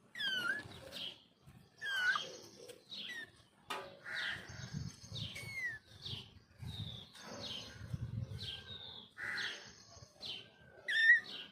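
Baby kitten mewing repeatedly in high, thin cries that fall in pitch, about one every second or two.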